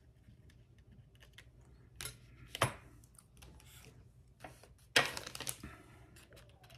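Steel surgical instruments clinking against each other as they are handled: scattered light clicks, a sharp metallic clink about two and a half seconds in, and a louder clatter about five seconds in.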